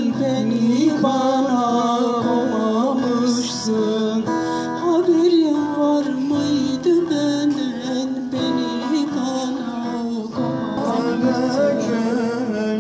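Live Turkish folk song: a woman singing into a microphone over strummed acoustic guitar.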